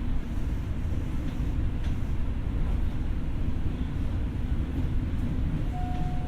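Steady low rumble of a Tokyo Metro 6000 series electric train heard from inside the car as it runs. Near the end a single thin steady tone starts.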